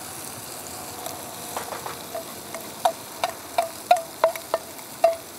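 Onions sizzling as they fry in a thin pan on a gas camping stove: a steady hiss. From about one and a half seconds in come about a dozen sharp knocks of the spoon against the pan as the food is stirred, each with a brief metallic ring.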